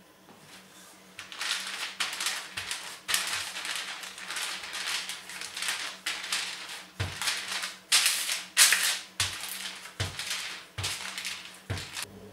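Wooden rolling pin rolling dough out between two sheets of baking paper: the paper crinkles and rustles with each stroke, starting about a second in. A few short, soft knocks come in the second half.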